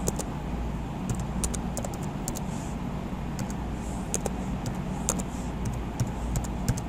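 Computer keyboard typing: irregular key clicks, some in quick runs, as a word is typed. A steady low hum sits underneath.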